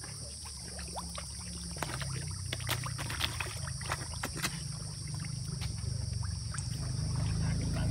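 A crowd of fish thrashing in shallow water at the bank, many small splashes at the surface that come thickest in the first half, with a steady low rumble of wind on the microphone.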